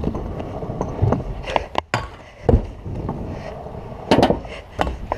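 Stunt scooter wheels rolling on concrete with wind rumbling on a helmet-mounted camera, broken by several sharp knocks: a loud one about two and a half seconds in and a cluster of clatter about four seconds in.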